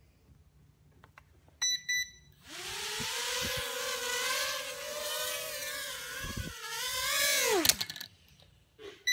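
Holy Stone HS170 Predator mini quadcopter taking off: after a few quick beeps, its motors and propellers spin up into a high whine about two and a half seconds in, hold with a wavering pitch while it flies, then wind down and stop near the end. With its propeller blades fitted in their correct positions, it now lifts off.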